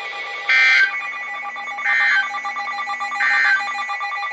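Three short bursts of EAS SAME digital data tones, about 1.4 seconds apart: the end-of-message (NNNN) bursts that close a weather radio alert. They play over a steady faint background hum of tones.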